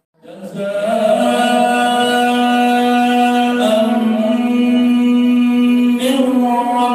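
A man reciting the Quran in melodic murottal style. After a short pause for breath at the start, he holds one long, steady drawn-out note, and the melody shifts briefly near the end.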